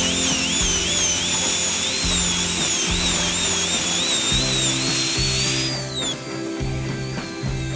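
Dental handpiece whining as its bur grinds a titanium implant abutment, the pitch dipping and rising with the load. About six seconds in, the whine slides down in pitch and drops away. Background music with low bass notes plays throughout.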